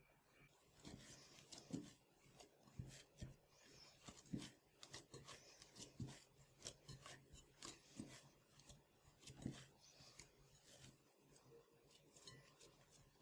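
Faint rubbing and light irregular taps of hands kneading dough in a glass bowl.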